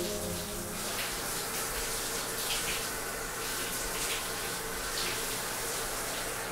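Shower running: a steady spray of water falling.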